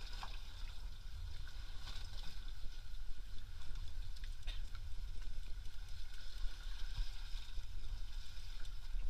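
Steady low wind rumble on the camera microphone aboard a small boat at sea, with a faint hiss and a few light clicks.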